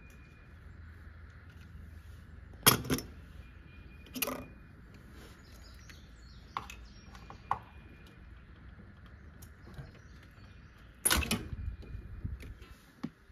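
Intermittent knocks and clicks of parts and tools being handled in a truck's engine bay while a coolant hose is fitted: a sharp knock about three seconds in is the loudest, with single clicks after it and a short rattling clatter near the end, over a faint steady hum.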